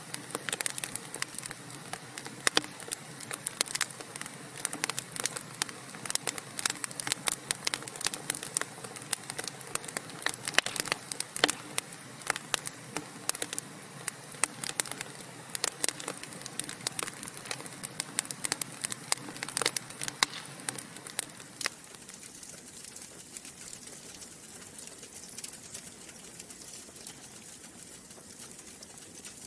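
Wood fire crackling: many sharp pops and snaps over a soft hiss. The crackles come thick and fast, then thin out and quieten about two-thirds of the way through.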